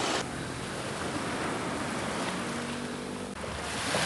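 Wind rushing on the microphone with surf washing at the shoreline, a steady hiss that shifts abruptly in level twice.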